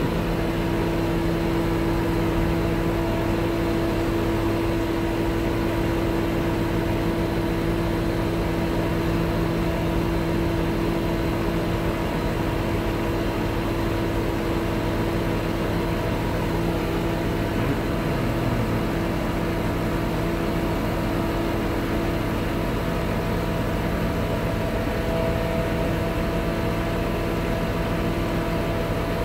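Scania R truck's diesel engine running steadily, a continuous hum with several steady tones, driving the hydraulics of the truck-mounted loading crane as the crane boom is moved.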